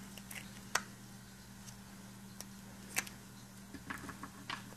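A few sharp, faint clicks and taps of small plastic glitter pots being handled and set down, the clearest about a second in and again about three seconds in, over a steady low hum.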